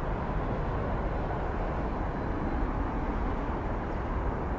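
Airbus A320 jet engines at takeoff thrust during the takeoff roll, heard from a distance as a steady, even rumble.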